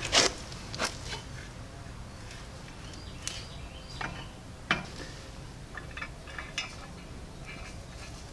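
A few scattered light clicks and knocks from parts and hand tools being handled during clutch work on an engine, over a steady low hum.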